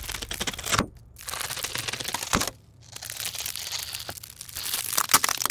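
Dense crinkling and crackling, in several runs broken by short pauses, with a few sharp snaps.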